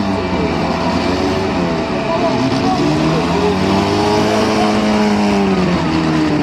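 Car engines revving during a demolition derby, their pitch rising and falling unevenly over a steady low drone.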